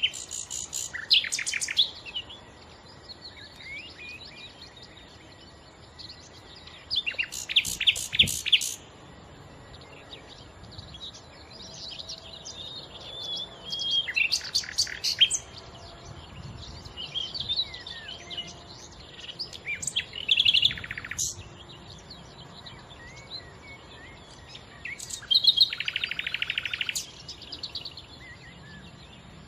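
Common nightingale singing: loud phrases of rapid repeated notes about every six seconds, with softer warbling and twittering between them.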